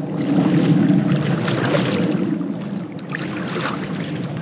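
Bass boat under way: a steady motor rumble with water and wind noise, swelling louder about half a second to two seconds in.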